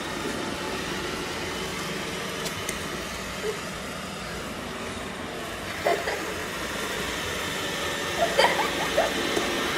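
Steady rushing background noise, like traffic or an air conditioner, with a few faint short voice-like sounds, most of them near the end.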